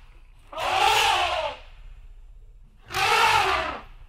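African elephant trumpeting twice, each call about a second long and rising then falling in pitch, over a low steady noise.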